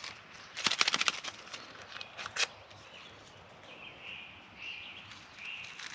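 Paper sweetener packets crinkled and torn open: a quick run of sharp crackles about a second in, then a single sharp snap. Faint, short, high sounds follow later.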